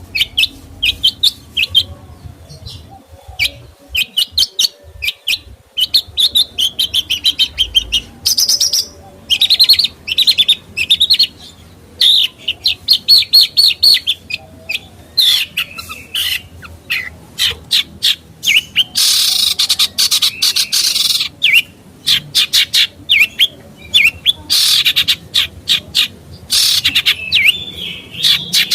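A songbird singing vigorously in rapid runs of short, sharp chattering notes, broken by harsh, scratchy bursts about two-thirds of the way through and again near the end.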